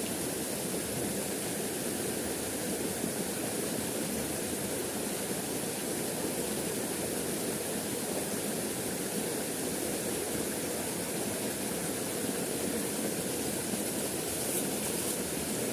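Small river's water flowing, a steady, unbroken noise.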